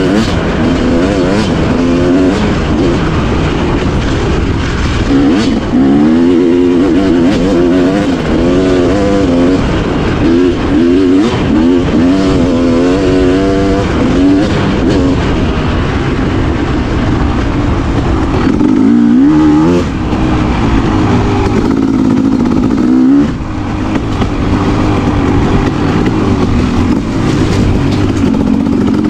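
Two-stroke dirt bike engine being ridden hard, its pitch climbing and falling again and again as the throttle is worked and gears change, with a couple of brief throttle cuts in the second half. Wind and tyre noise run under it.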